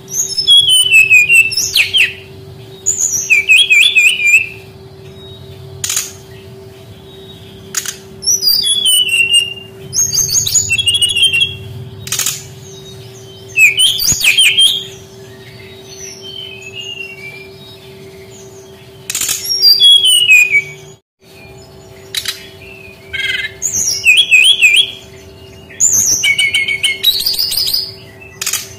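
Brown-chested jungle flycatcher (sikatan rimba dada coklat) singing: bursts of fast, high warbling phrases, each a second or two long, with short pauses between them. A steady low hum runs underneath.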